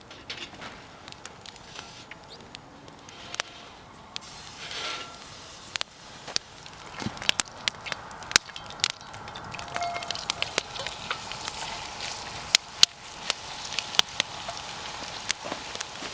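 Wood campfire crackling, with irregular sharp pops and snaps over a low hiss that grows a little louder about halfway through.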